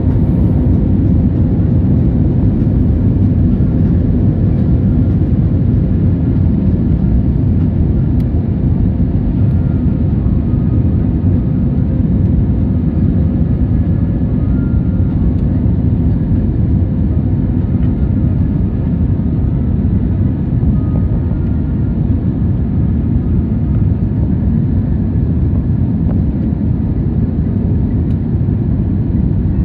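Jet airliner cabin noise in flight: a steady low rumble of engines and rushing air, heard from inside the passenger cabin.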